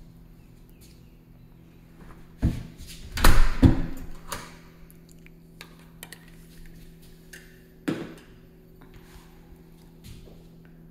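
Several scattered knocks and thumps, loudest in a cluster about three to four seconds in and again just before eight seconds, over a faint steady hum.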